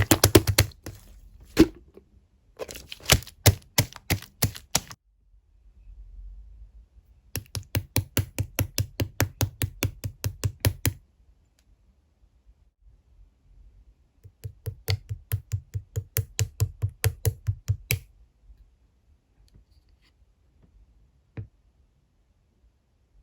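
Clear slime being squished and pressed by hand, giving quick sticky popping clicks about five a second in three runs of several seconds each, with short pauses between them.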